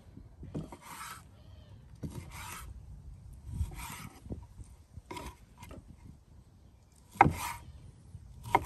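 A kitchen knife slicing a raw fish fillet into pieces on a wooden cutting board: about eight short scraping cuts, roughly one a second. The blade knocks on the board with the last two cuts, the loudest sounds.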